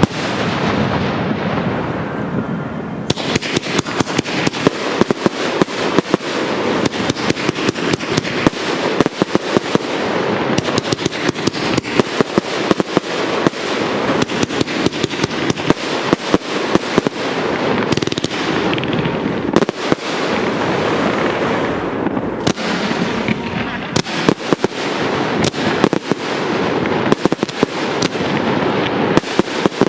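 Professional aerial fireworks display: shells bursting in quick succession, a rapid run of sharp bangs over a continuous crackle, with a few short lulls.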